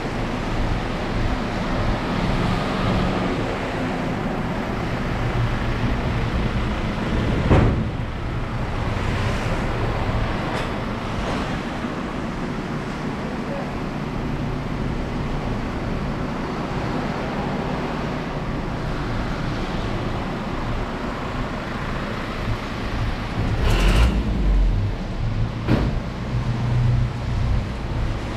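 Steady outdoor noise of a rainy street: traffic on a wet road. A sharp knock comes about a quarter of the way in, and a couple more come near the end.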